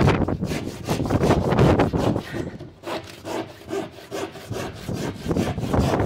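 Bahco 244 handsaw cutting through plasterboard in quick back-and-forth strokes, the blade rasping through the gypsum board along a timber stud. The strokes ease off for a moment around the middle and then pick up again.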